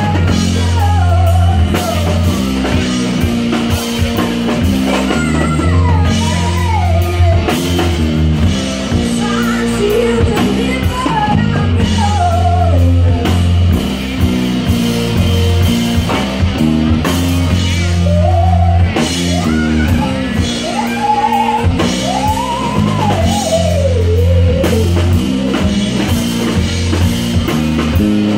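Live band playing with a woman singing lead over electric guitar, bass guitar and drum kit, her voice gliding up and down through the melody.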